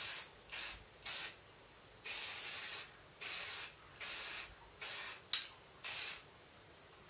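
Aerosol can of spray primer hissing in short bursts, about seven in a row, each under a second and one of them longer, stopping about a second before the end. A sharp click sounds between two bursts late on.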